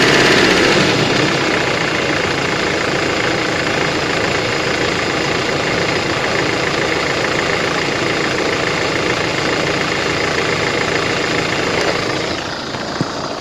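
2005 Mercedes-Benz Vito engine running with a knock, which the owner has traced past the crankshaft and main bearings and takes for a faulty injector or a hydraulic lifter. The engine gets quieter about a second in and again near the end.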